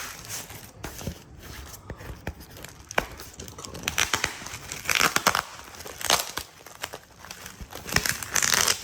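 Packaging being crinkled and torn open by hand, irregular rustling with sharp crackles, louder surges about halfway through and near the end.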